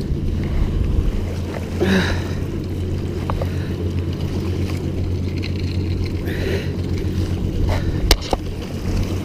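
Steady low rumble of wind and heavy rain buffeting the camera microphone, with a couple of sharp clicks about eight seconds in.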